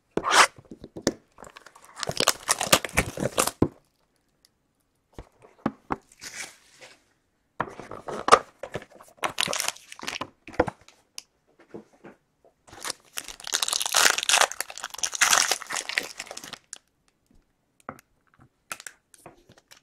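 Cardboard and plastic being torn and crinkled as a sealed box of 2015 Panini Playbook football cards is ripped open and its foil-wrapped pack handled. The sound comes in several separate bursts of tearing and rustling, and the longest and loudest comes in the last third.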